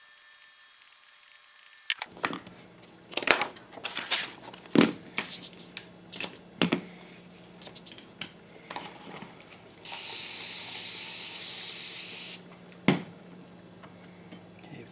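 Spring clamps and a sheet of wet-dry sandpaper being handled on a granite sharpening slab: a string of clicks and knocks starting about two seconds in. About ten seconds in, a spray bottle sprays water onto the fresh sheet in one steady hiss lasting about two and a half seconds, followed by one more knock.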